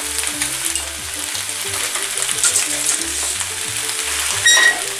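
Drained penne and chicken-and-pepper ragù sizzling in a hot frying pan as they are stirred together. A short ringing metallic clink comes near the end.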